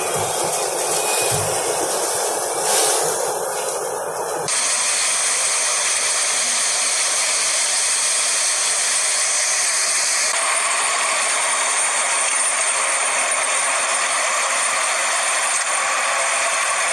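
Tractor-driven straw chopper shredding standing paddy straw, a dense steady hiss. About four seconds in it changes abruptly to a tractor-mounted rotavator tilling the chopped stubble, a steady mechanical rattle with a whine in it, which shifts again about ten seconds in.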